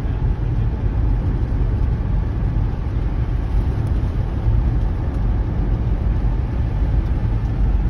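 Steady low rumble of road and engine noise inside the cabin of a moving vehicle, even throughout with no sudden sounds.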